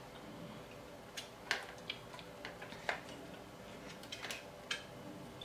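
White plastic parts of a Fisher-Price Sit-Me-Up floor seat clicking and knocking against each other as they are handled, in a handful of scattered clicks with the sharpest about a second and a half in.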